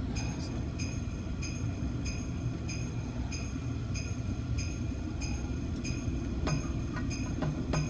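Steady road and engine rumble inside a moving car's cabin, with the turn-signal indicator ticking evenly about one and a half times a second.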